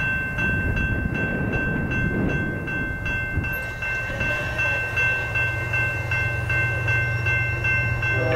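A grade-crossing bell ringing rapidly and steadily, about four strokes a second, over the rumble of an approaching train; about halfway through, a steady low engine hum from the locomotive comes in.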